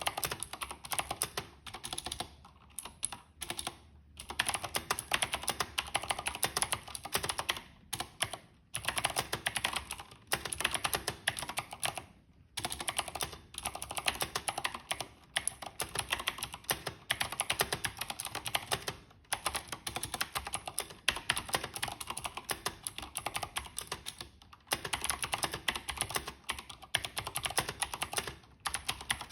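Fast typing on a Thermaltake Level 20 GT mechanical keyboard with Cherry MX Blue switches: rapid, crisp clicky keystrokes in runs of a few seconds, broken by short pauses.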